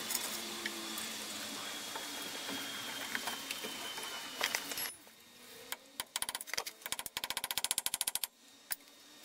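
Hand tools working on a car's front wheel hub: light metallic clicks and taps, then a quick run of even clicks, about a dozen a second, for just over a second near the end.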